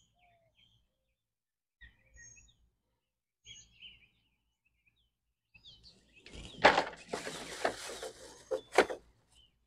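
Faint bird chirps, then from about six seconds in, a thin plastic shopping bag crinkling and rustling loudly as a hand rummages in it, ending with a few sharp crackles.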